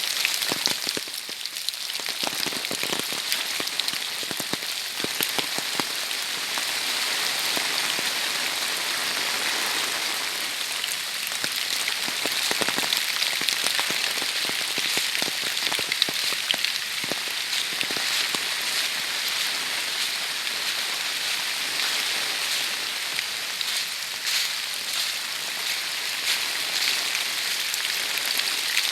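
Heavy rain falling steadily, with many sharp, separate drop hits over a continuous hiss.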